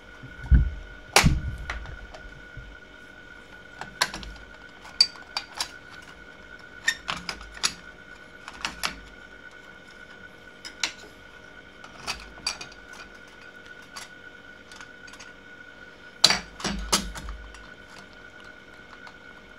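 Irregular clicks, taps and knocks of the PreSonus TubePre V2 preamp's metal casing, plastic panels and circuit board being handled and fitted together, with heavier thumps about a second in and again near the end. A faint steady whine sits underneath.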